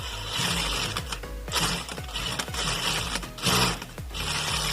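Electronic industrial straight-stitch sewing machine running in about five short bursts, each winding down quickly to a stop at needle position. The stops are clean, without the whistle that a worn motor-to-main-shaft coupling had caused.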